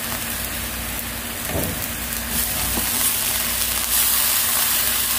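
Soy sauce and water sizzling in a hot frying pan of sautéed garlic as the liquid is poured in and stirred with a spoon; the sizzle grows louder about halfway through and again near the end.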